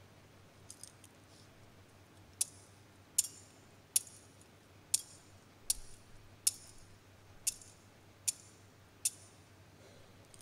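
Metal thurible being swung to incense the Gospel book before it is read, its chains and bowl clinking. There are a few faint chain rattles near the start, then nine sharp clinks about one every 0.8 s, each with a short ring.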